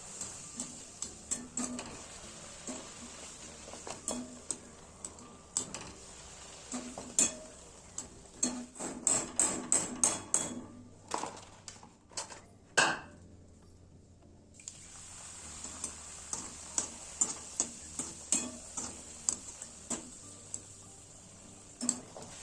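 A metal spatula knocking and scraping against a metal cooking pan while food is stirred, in irregular clinks with a quick run of them partway through and one loud knock near the middle. A steady hiss of frying runs underneath and drops out briefly after the loud knock.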